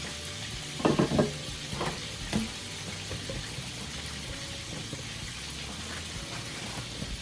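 Chicken pieces frying in a pan of oil: a steady sizzle, with a few short louder knocks about a second and two seconds in.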